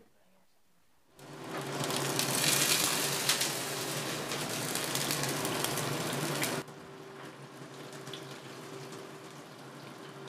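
Small dried anchovies frying in hot oil in a pan. A loud sizzle with crackling starts about a second in, then drops suddenly a little past halfway to a quieter steady sizzle, with a low steady hum underneath throughout.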